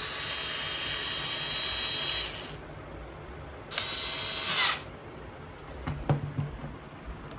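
Cordless electric screwdriver running twice as it drives screws into a 2.5-inch SSD's mounting bracket: a steady whir of about two and a half seconds, then a shorter run of about a second. A few light clicks follow near the end.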